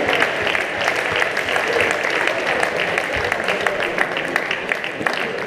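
A crowd in an indoor hall applauding: many hands clapping in a dense, steady stream, with some voices mixed in.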